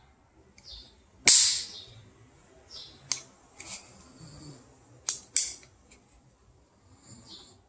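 Sharp metallic snaps from the hammer and lock of a homemade .50 caliber black powder pistol being worked: one loud snap about a second in, then fainter clicks near three seconds and a close pair near five seconds, with soft short hisses between.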